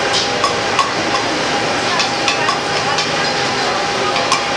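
Oyster omelettes frying on a large flat griddle with a steady sizzle, while a metal spatula taps and scrapes against the griddle in sharp, irregular clicks.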